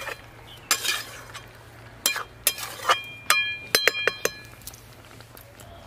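Flat metal spatula scraping and clinking against a metal wok while stirring a thick vegetable curry. Scattered knocks give way to a quick run of sharp clinks about three to four seconds in, each ringing briefly.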